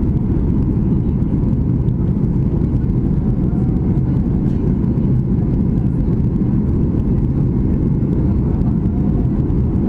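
Boeing 737 engine and airflow noise heard from inside the aircraft in flight after departure: a steady low rumble with a constant low hum.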